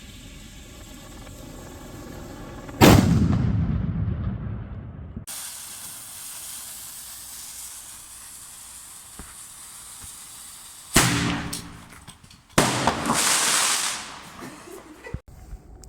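Fireworks going off: a loud bang about three seconds in with a rumble that fades away, then two more loud bangs near the end, the second ringing on for over a second, with a steady hiss in between.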